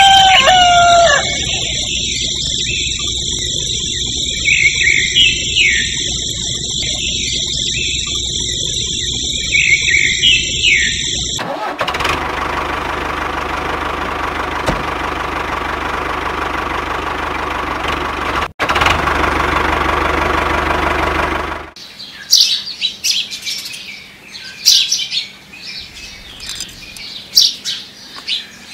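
Birds chirping over a steady high-pitched ambience. About eleven seconds in this cuts abruptly to a steady engine running, which stops abruptly a little after twenty seconds, leaving scattered bird chirps and squawks.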